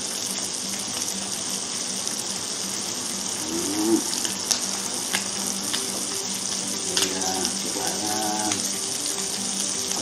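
Duck breasts sizzling in butter in a frying pan, a steady sizzle with a few light clicks.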